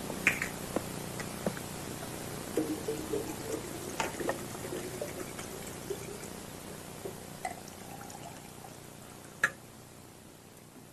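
Liquor poured from a glass bottle into a glass, a gurgling run a couple of seconds in, among small clinks and knocks of glass on the bed table, with one sharp click near the end.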